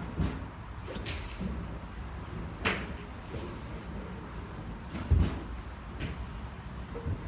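Golf driver striking a ball with a sharp crack about two and a half seconds in, with fainter clicks of other strikes around it. A low thump comes about five seconds in.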